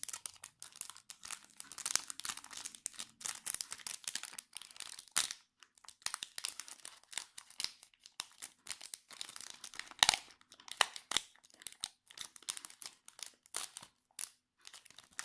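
Foil wrapper of a Yu-Gi-Oh! booster pack crinkling and being torn open by hand, an irregular run of crackles with one sharp snap about ten seconds in.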